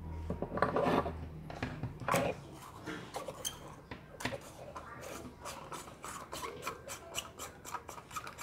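An LED bulb's screw base being twisted into a rubber lamp socket by hand: a quick, irregular run of small scraping clicks, denser in the second half.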